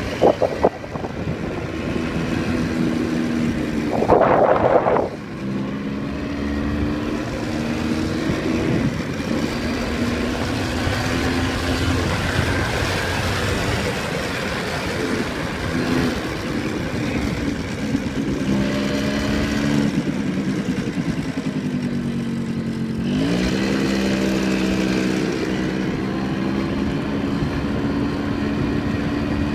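Yamaha motorcycle engine running at low revs while riding along slowly, its pitch rising as it accelerates about three-quarters of the way through. A brief loud noise comes about four seconds in.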